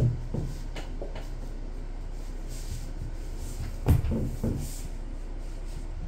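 Kitten pouncing and tussling with toys on a towel-covered pen floor: a soft thump right at the start, then a louder thump about four seconds in followed by a few lighter knocks.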